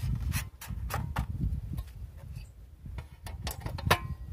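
Clicks and knocks of a paper target card being fitted into a metal pellet trap and a plastic box being set down on top of it, over a low rumble. There are several sharp knocks, the loudest near the end.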